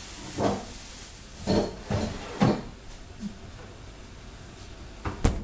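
Rummaging in a refrigerator: a few short knocks and rustles in the first two and a half seconds as a bunch of carrots is taken out, then one sharp knock near the end as the fridge door shuts.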